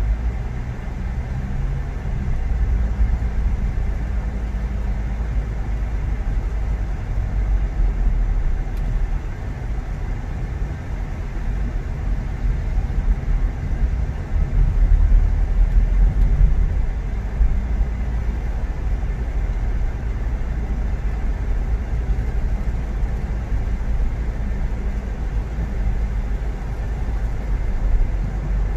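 A car being driven: a steady low engine and road rumble that grows a little louder around the middle.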